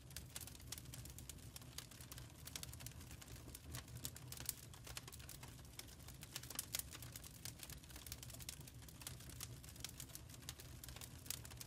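Faint crackling fire sound effect: irregular crackles and pops over a steady low rumble.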